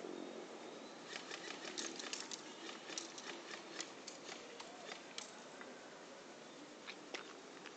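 Airsoft guns firing: a quick, irregular string of sharp clicks for about four seconds, then a couple of single shots near the end.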